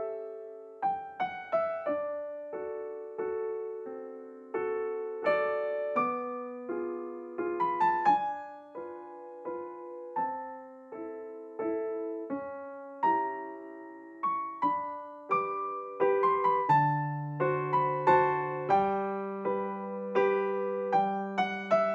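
Background piano music: a gentle melody of single struck notes that ring and fade, with deeper bass notes joining in near the end.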